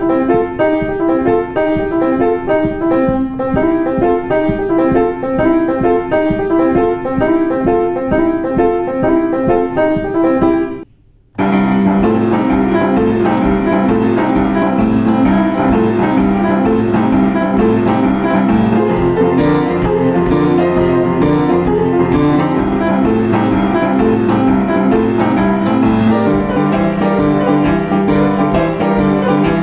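Boogie-woogie piano playing in a steady, evenly repeating rhythm. It breaks off for a moment about eleven seconds in, then resumes fuller and denser, with a strong sustained bass.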